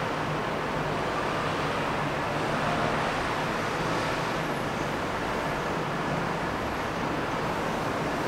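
Steady hum and hiss of distant road traffic, unchanging throughout.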